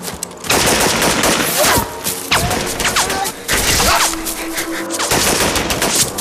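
Dense gunfire from an action-film battle scene: many rapid shots piling over one another, starting about half a second in.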